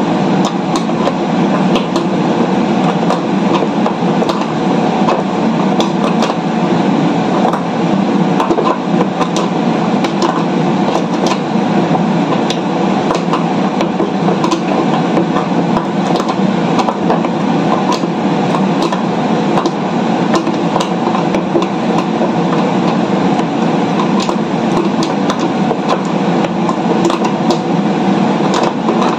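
Steady, loud machinery-like noise with scattered clicks and light knocks from hand work on a wooden cabinet fitted with casters.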